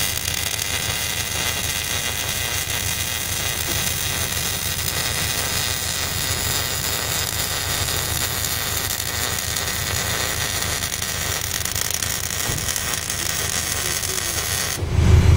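Wire-feed (MIG) welder arc running one continuous bead on sheet metal: a steady crackling hiss with spatter, unbroken throughout.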